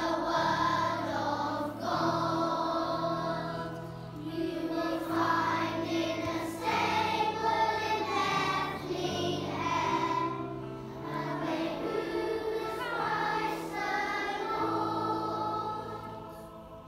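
A group of young children singing a song together, with instrumental accompaniment holding low notes beneath the voices.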